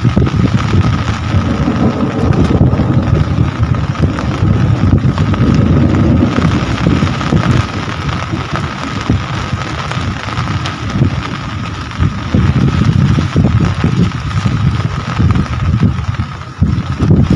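Steady rain falling, with a fluctuating low rumble of wind buffeting the microphone and a thin steady tone running underneath.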